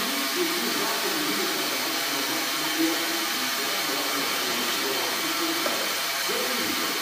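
Steady hiss with faint, muffled voices murmuring underneath.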